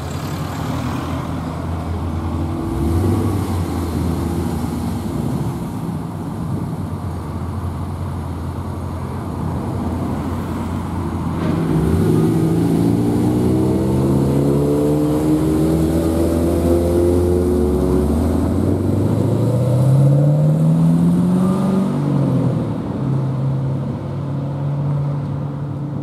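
Chevrolet Camaro SS's 6.2-litre V8 exhaust running at low revs with short throttle blips, then the revs climbing and dropping twice as the car pulls away, settling to a steady drone near the end.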